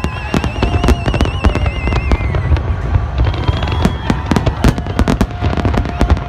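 Fireworks display going off: rapid sharp bangs and crackles over a continuous low rumble. A high, wavering whistle runs through the first couple of seconds and falls away.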